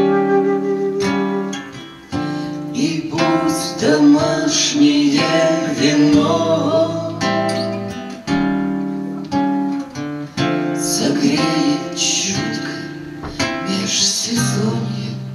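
Instrumental blues break: a concert flute plays the melody over a fingerpicked acoustic guitar. The flute drops out about halfway through, leaving the guitar playing alone.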